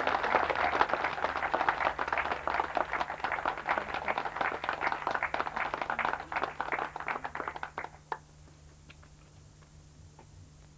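Audience applauding, dense clapping that thins out and dies away about eight seconds in, leaving a few last scattered claps.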